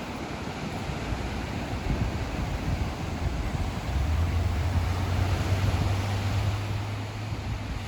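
Ocean waves washing onto the shore, with wind buffeting the microphone. A low steady hum joins about halfway through and stops just before the end.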